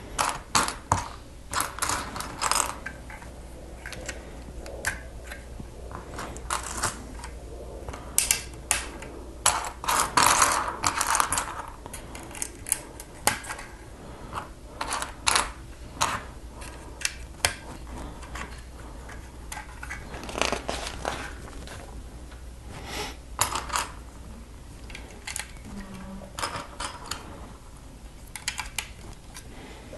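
Lego bricks and plastic plates being handled and pressed together: irregular sharp plastic clicks and taps, some in quick clusters.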